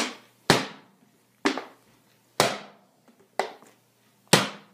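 A 2-litre plastic soda bottle popped sharply by hand as an imitation gunshot: six loud pops about a second apart, each with a short ring.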